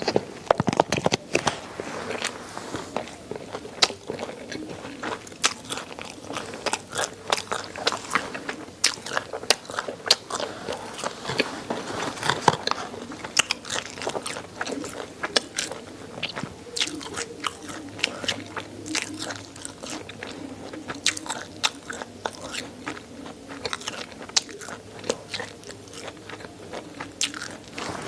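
Chewing and biting through chicken neck with many irregular, sharp crunches as the small bones crack, along with mouth sounds.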